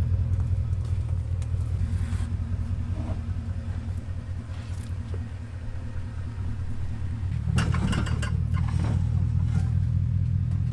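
A motor vehicle's engine running with a steady low rumble. A short burst of louder, hissier noise comes through about seven and a half seconds in.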